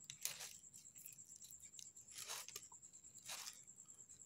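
Ginger root being peeled: three faint scraping strokes a second or so apart as the skin is scraped off.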